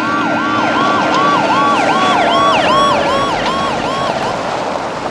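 Police car siren in a fast yelp, its pitch sweeping up and down about twice a second, dying away about four seconds in.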